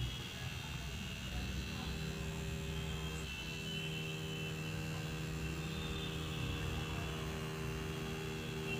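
Coil tattoo machine buzzing steadily as it lines a design into a practice skin pad.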